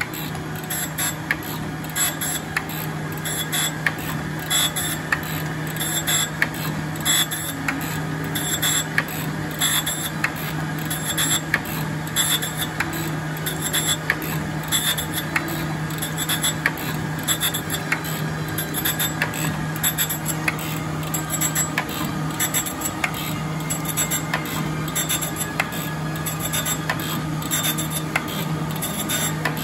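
Jones & Shipman 1400 surface grinder running with flood coolant: a steady motor hum under a grinding hiss, with frequent sharp ticks, as the wheel takes a light pass of about a thousandth of an inch across steel discs.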